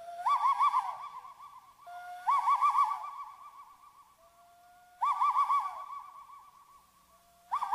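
Owl-like hooting call, four times about two to three seconds apart: each starts with a short rising whistle that breaks into a quick warble on one pitch, then fades slowly.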